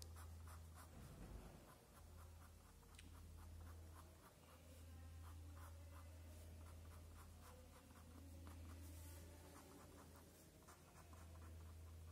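Faint scratching of an ink pen on paper in quick runs of short strokes: cross-hatching to shade a drawing. A low steady hum runs underneath.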